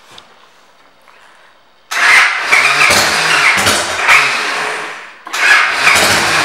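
A 2006 Victory Kingpin's V-twin engine with aftermarket exhaust pipes starts suddenly about two seconds in and is revved. The revs fall away just after five seconds, then a sharp throttle blip brings them back up.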